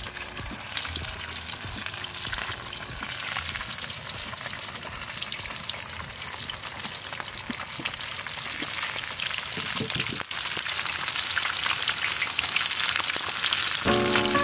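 Oil sizzling and crackling steadily around a whole fish frying in a pan over a wood fire, growing gradually louder.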